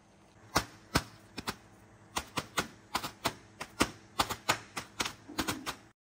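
Bubble wrap being popped by hand, bubble by bubble: a run of sharp, irregular pops, a few at first, then about four a second from about two seconds in.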